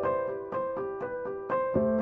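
Background music: a piano playing an even run of notes, about four a second, over held lower notes. The bass note steps down about three-quarters of the way through.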